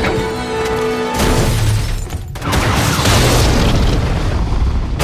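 Action-movie soundtrack: heavy booms and crashes over a dramatic music score, with a brief lull about two seconds in.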